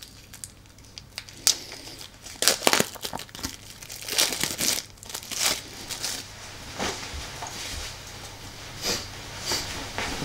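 Plastic shrink-wrap on a pack of game cards being torn open and peeled off, in a string of short crinkling, rustling bursts starting about a second and a half in.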